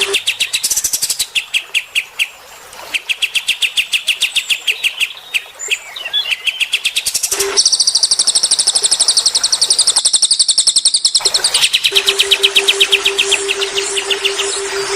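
Small songbirds chirping in fast, rapid-fire series of high notes, with a short pause after about two seconds; about halfway a higher, denser trill takes over. A steady low hum joins near the end.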